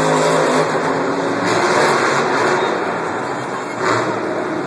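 Monster truck engines, supercharged big-block V8s, running hard and revving during a race, heard across a stadium. There is a brief louder burst about four seconds in.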